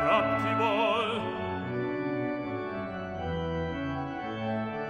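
A bass-baritone voice sings the end of a phrase with wide vibrato, then a church pipe organ carries on alone with sustained chords over a stepping bass line.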